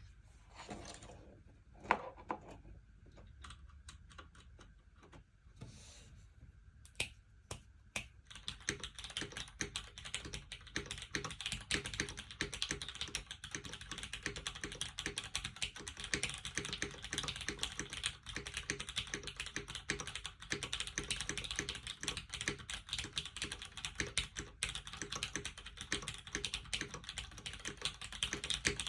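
Typing on a LifeZone LZ CLSn mechanical keyboard: a top-mounted board with a full aluminium plate, lubed vintage Cherry MX Black linear switches and GMK keycaps. A few scattered clicks come first, then steady fast typing from about eight seconds in.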